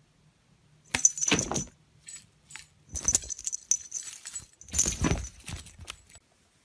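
Metal jingling in three bursts about two seconds apart, with a bright high ringing in each.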